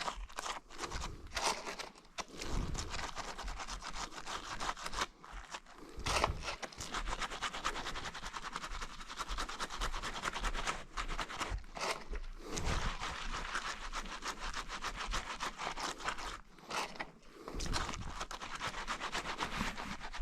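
Scrubbing an orphan lamb's wet wool by hand: a steady scratchy rubbing, paused briefly a few times, as the scours are washed off it.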